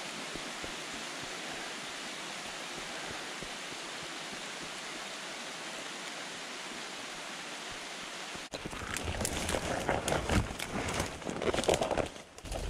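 Steady rain falling on the forest leaves, an even hiss. About eight seconds in it cuts to brush crackling and rustling, with irregular knocks, as someone pushes through wet undergrowth.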